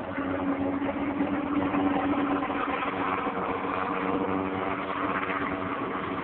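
Sikorsky S-58T helicopter running, its turboshaft engines and rotor making a steady noise with a held hum, which grows a little louder as it begins.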